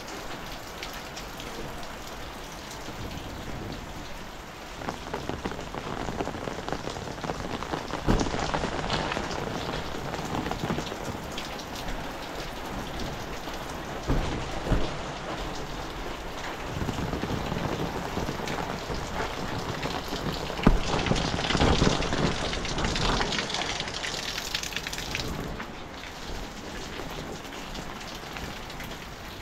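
Heavy rain falling on roofs and a paved alley, a steady hiss of drops and splashing runoff. It swells louder and heavier about eight seconds in and again around twenty seconds in.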